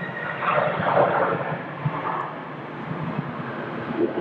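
Jet airliner's engines during its landing rollout: a steady rushing noise that swells about half a second in and is loudest around a second in.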